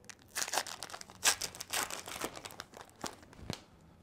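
Trading-card pack wrapper of a Topps Heritage baseball pack being torn open and crinkled by hand, in a cluster of rustling bursts over the first two seconds, followed by two short taps.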